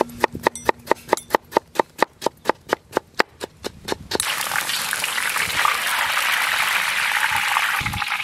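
A large kitchen knife chopping a tomato on a wooden board: quick, even knocks, about six a second. About four seconds in, this gives way to the steady sizzle of shredded potato sticks deep-frying in hot oil in a wok.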